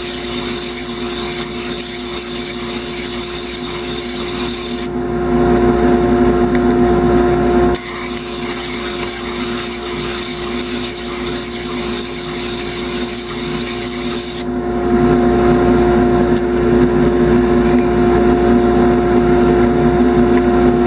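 Sanding disc on a wood lathe running with a steady motor hum while a small glued-up wooden disc is pressed against the abrasive, giving a hissing scrape. The sanding stops about five seconds in, starts again about eight seconds in, and stops again near fifteen seconds, leaving the machine running on its own.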